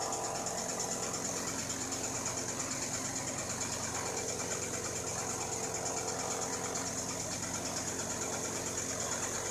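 A machine's engine running steadily with a fast, even pulse.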